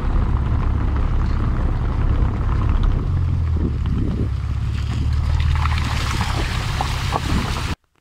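A car driving over a rough cobbled and muddy dirt road, picked up by a microphone mounted low on the outside of the car: a loud, steady low rumble of tyres and running gear with wind buffeting on the microphone. The rumble shifts in tone about three seconds in and cuts off suddenly near the end.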